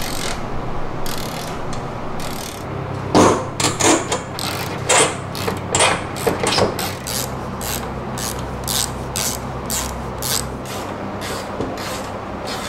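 Hand ratchet and metal tools working the bolts of a fuel tank's straps and guard: irregular ratchet clicks and metal knocks, busiest a few seconds in. A steady low hum sits underneath for most of it.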